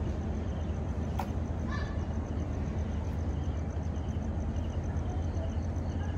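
Steady low diesel hum from a passenger train standing at the platform, its engines idling. Faint short high chirps recur over it, and there is a single sharp click about a second in.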